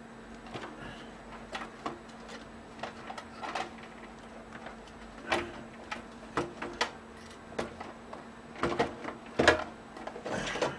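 Power supply unit being worked loose and pulled out of a Dell Vostro 200 desktop computer's case: irregular clicks, knocks and scrapes of the unit and its cables against the case, loudest near the end.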